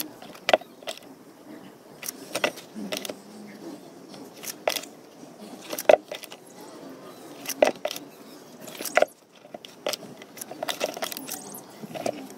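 Tape measure and marker being handled against a plastic bucket: a series of sharp metallic clicks and clacks every second or two, with faint rustling between them.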